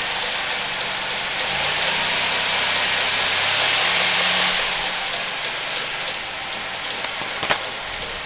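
1991 Buick LeSabre's 3800 Series I V6 idling with a regular tick, about once every two revolutions, and a sharper click near the end. The owner suspects the accessory drive, or at worst a bent pushrod or a broken rocker arm or valve spring.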